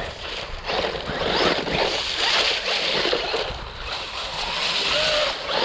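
Small electric RC truck driving over dry leaves and dirt, its tyres crunching and its motor running, the noise swelling and easing with the throttle.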